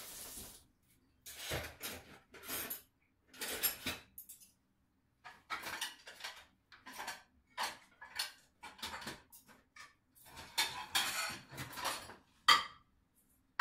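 Dishes and utensils clattering at a kitchen sink: a run of irregular clinks and knocks with short gaps, and one sharp clink near the end.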